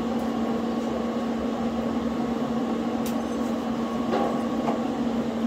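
Stick welder running with a steady low electrical hum.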